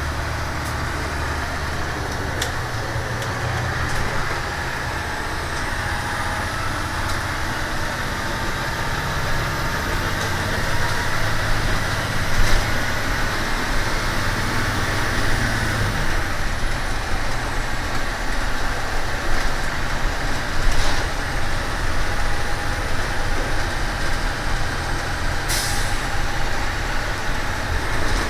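A 1999 Amtran school bus under way: its diesel engine runs steadily beneath a constant rush of road and wind noise, the engine note changing about halfway through. A few sharp clicks and knocks come through over the drone.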